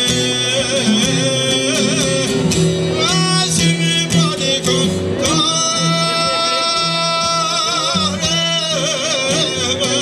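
Male folk rhapsode singing in a high, ornamented, wavering voice to his own plucked çifteli (Albanian two-string long-necked lute), holding one long quavering note through the middle.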